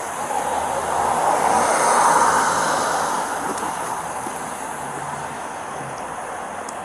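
A vehicle passing by on the road, its noise swelling to a peak about two seconds in and then fading away into steady background traffic.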